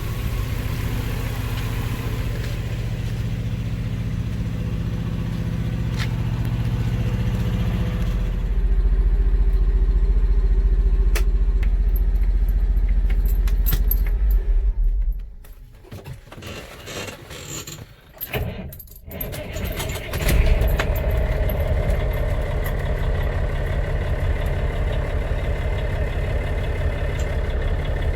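A diesel engine runs steadily, growing louder and deeper about eight seconds in, then stops about fifteen seconds in. A quieter stretch of rattles and jingling follows. About twenty seconds in, the truck's diesel engine catches and settles into a steady idle, its dead batteries having been boosted by the APU.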